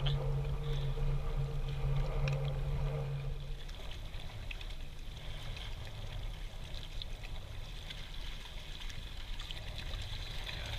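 Shallow seawater lapping and trickling over flat reef rocks in a tidal pool. A steady low hum runs under it for the first few seconds, then stops.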